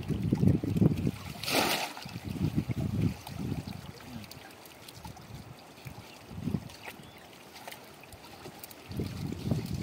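River water sloshing and splashing as it is worked by hand, in irregular low surges, with one sharper splash about a second and a half in.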